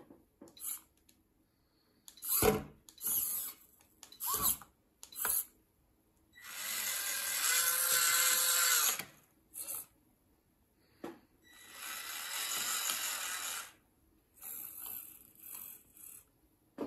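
Small electric gear motors of a handmade radio-controlled model tractor whirring in a series of short bursts, with two longer runs of two to three seconds each around the middle.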